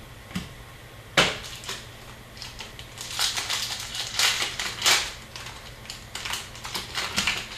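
Hockey trading cards being handled and shuffled through at a table: a series of irregular sharp crackles and rustles, the loudest a single crack a little over a second in, then denser flurries in the middle and near the end.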